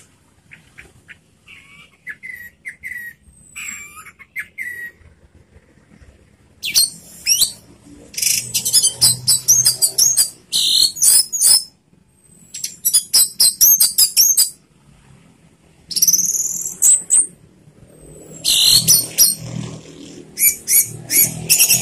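Orange-headed thrush singing: softer short notes for the first few seconds, then loud phrases of rapid, high, sliding and trilled notes, each a second or a few seconds long, with short pauses between.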